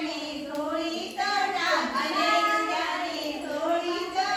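Girls and women singing a folk song together in high voices, with long held notes.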